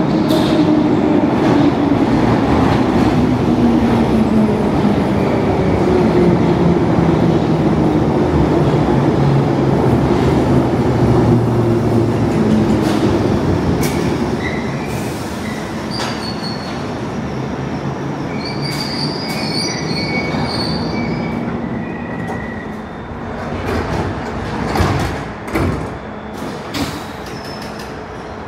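London Underground tube train slowing. Its motor whine falls steadily in pitch over the first half, then high wheel and brake squeals ring out over a quieter rumble, with a few sharp knocks near the end.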